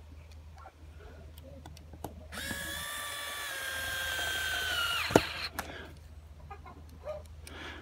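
Small cordless electric screwdriver whining for about three seconds as it drives a screw through a new wheel pad into a plastic stroller frame. The pitch sags a little as the screw tightens, and it stops with a sharp click. Light handling clicks come before it.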